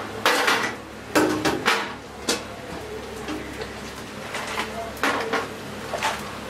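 Metal udon strainer baskets clanking sharply against the steel rim of the noodle boiler as the boiled noodles are lifted and drained, several knocks in the first two seconds. Later come softer clinks as a ceramic bowl is handled on the stainless-steel counter.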